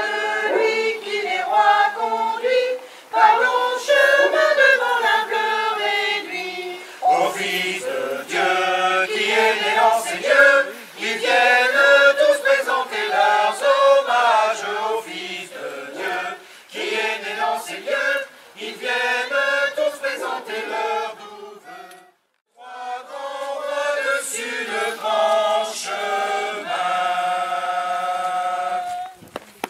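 Choir singing unaccompanied, with a brief pause about three-quarters of the way through, ending on a long held chord.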